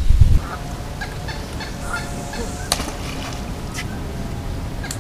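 Wind rumbling on the microphone at the very start, then open-air sound over the water with short calls of waterfowl and a few sharp clicks.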